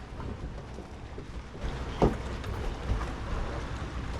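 Low steady rumble of a boat's engine with wind buffeting the microphone, and a sharp knock about two seconds in.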